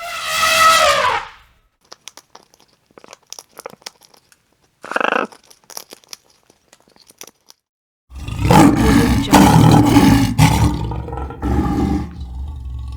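Animal calls: a loud pitched call that falls in pitch over the first second and a half, scattered faint clicks, a short call about five seconds in, then a long, loud, deep call of about four seconds from eight seconds in.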